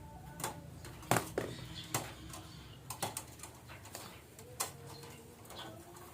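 Betet parakeets (red-breasted parakeets) giving a series of short, sharp squawks at irregular intervals. These are the calls of a decoy betet used to lure wild ones.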